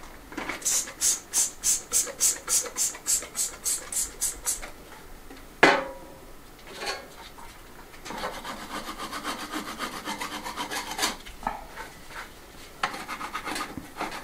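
Stiff hand brush scrubbing an old wooden ceiling beam overhead, cleaning it with agua fuerte acid, in regular strokes of about three or four a second. A single sharp knock comes a little before halfway, then the scrubbing returns in quicker, closer strokes.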